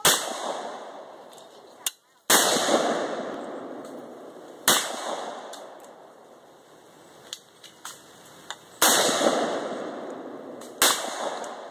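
Five gunshots, the first three about two seconds apart, then a pause and two more, each followed by a long echo that dies away over a second or two.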